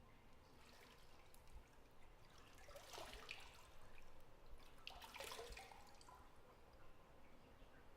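Faint bathwater in a tub: two short spells of dripping and trickling water, about three seconds in and again about five seconds in, over a quiet room hiss.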